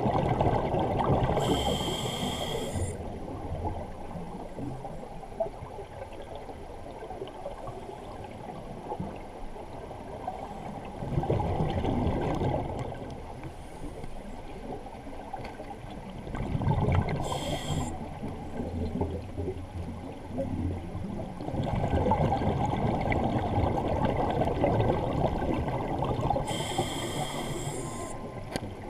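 Scuba diver breathing through a regulator underwater: exhaled bubbles gurgle in long, low rushes, and a short hissing inhalation comes three times, about a second and a half in, a little past halfway, and near the end.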